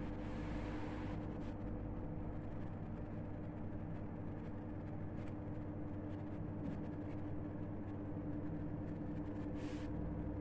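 A steady low machine hum with a few faint clicks now and then.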